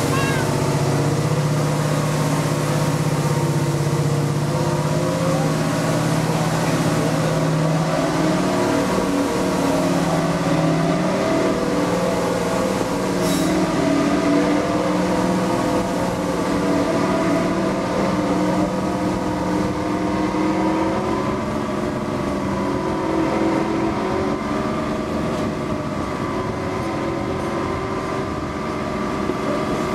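British Rail Class 55 Deltic diesel locomotive running steadily as it hauls the train. Its twin Napier Deltic two-stroke engines are heard from the coach behind, with wheel and rail noise. The engine note shifts about eight seconds in.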